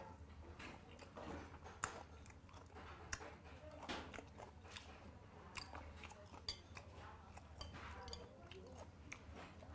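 Close-up chewing of spicy fermented skate salad: wet mouth sounds with soft crunches and many irregular sharp clicks.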